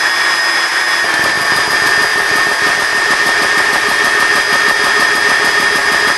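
GX-E-CS2 portable high-pressure air compressor starting up about a second in, its pump running with a rapid, even pulsing over the steady whine of its cooling fans. The bleed valve is open, so the pump is running without building pressure yet.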